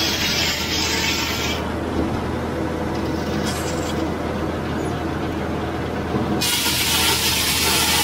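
Large circular sawmill blade cutting lengthwise through a log as the carriage feeds it past. The mill's machinery hums steadily underneath.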